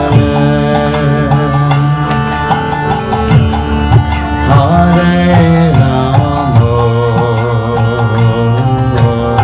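Kirtan music: a harmonium sounding held chords over the beats of a mridanga drum.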